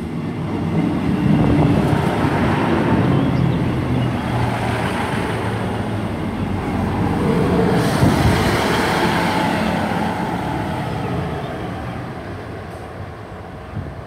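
A Class 158 diesel multiple unit arriving at the platform: its diesel engines and wheels on the rails make a loud, steady rumble. The sound eases off and fades over the last few seconds as the train slows.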